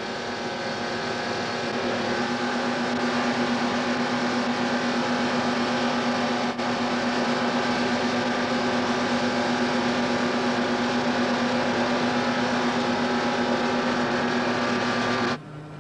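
Ford Cosworth 1.5-litre twin-turbo V6 Formula One engine running on the test bed at steady revs. It fires evenly now that its computer sends a steady fuel-injector pulse. The sound cuts away abruptly near the end.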